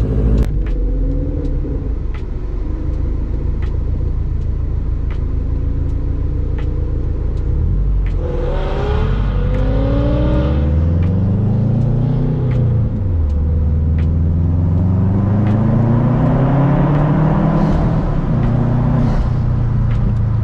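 2006 Subaru WRX's turbocharged flat-four engine running, its revs climbing and falling back twice.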